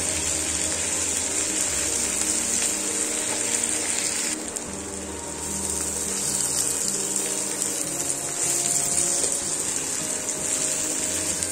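Sliced onions sizzling as they fry in hot mustard oil in a nonstick pan, stirred now and then with a wooden spatula; the sizzle eases briefly about four seconds in. A steady low hum runs underneath.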